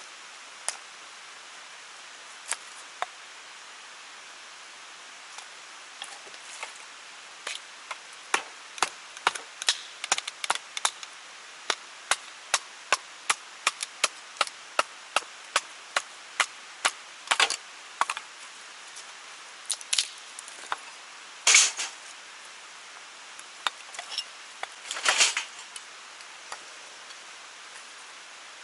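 Blade chopping wood in a run of short, sharp strokes, about two a second through the middle, with a few louder knocks near the end, over a steady rushing hiss.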